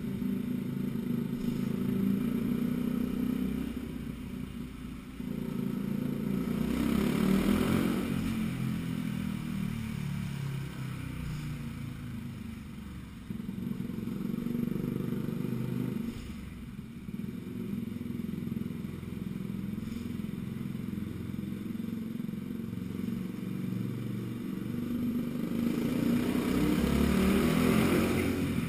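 Yamaha WR125X motorcycle's 125 cc single-cylinder four-stroke engine running through an aftermarket Arrow exhaust, revved up and let fall back several times. It is loudest about seven seconds in and again near the end.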